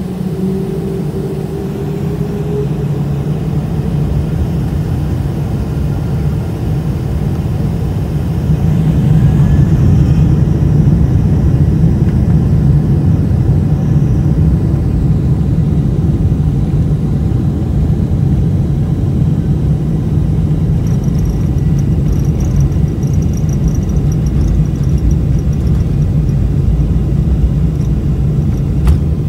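Boeing 747 takeoff roll heard from inside the cabin. The engines spool up to takeoff thrust with a rising whine in the first couple of seconds. A loud, steady rumble then grows and reaches full loudness about nine seconds in.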